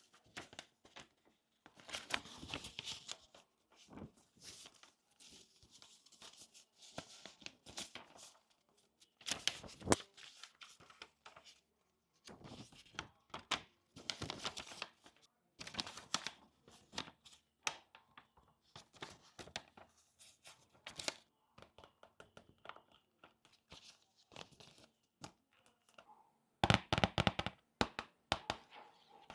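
Plastic packaging being torn open and crinkled by hand in irregular bursts, loudest near the end.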